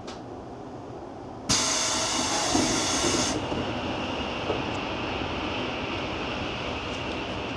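Door of a JR Central 373 series train opening: a sudden, loud hiss of air starts about a second and a half in and cuts off after nearly two seconds, with a dull thud partway through. The stationary train's steady rumble runs underneath.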